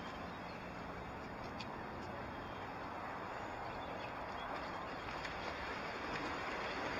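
Steady rushing noise of riding an electric unicycle over pavement: wind across the microphone and the tyre rolling, with a few faint clicks.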